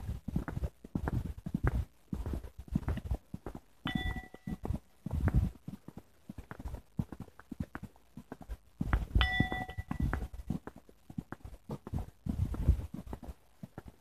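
Footsteps thudding irregularly on a path, about two a second, with two short bell-like dings about four and nine seconds in.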